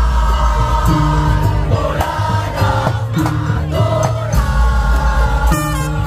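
Madurese musik daul (tong-tong) ensemble playing loudly: a heavy, repeating low beat under a sustained melody line.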